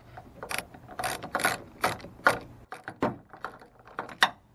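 Hand socket ratchet with a 10 mm socket clicking in uneven strokes as it backs off the nut on a battery's negative terminal clamp.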